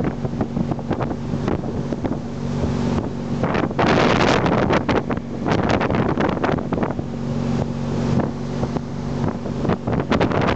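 Tow boat's engine running steadily at speed with a low hum, under loud wind buffeting the microphone in gusts.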